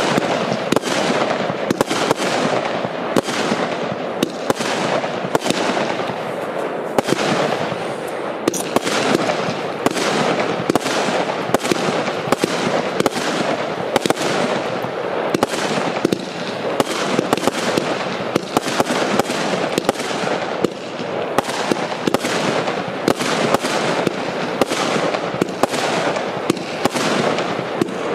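Piromax Ballistic 64-shot, 20 mm consumer firework battery (cake) firing in quick succession: sharp shots about two a second over a continuous crackle and hiss from the bursting stars.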